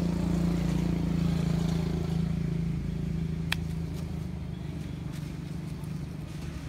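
A motor vehicle's engine humming steadily, fading after about three seconds, with a single sharp click about halfway through.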